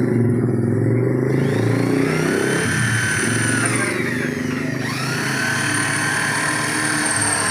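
A vehicle engine running, its pitch rising, holding and falling back twice, as when it is revved up and let down.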